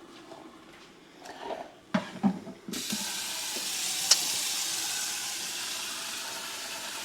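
A few utensil clatters, then a kitchen faucet turned on about two and a half seconds in, water running steadily into the sink. Under it, the faint sizzle of cornbread batter frying in hot butter in the skillet.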